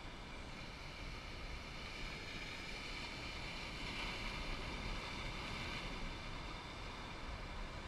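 Ocean waves breaking and washing against a rock jetty, with wind on the microphone; the wash swells about halfway through.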